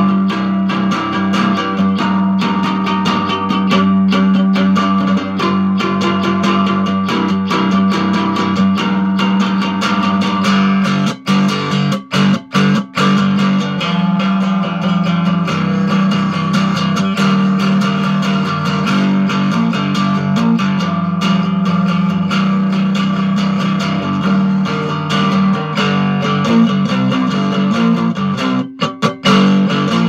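Hubcap Howler three-string cigar box guitar with a hubcap resonator, played with a steady low droning note under a picked melody. The playing breaks off briefly a few times about a third of the way in and again just before the end.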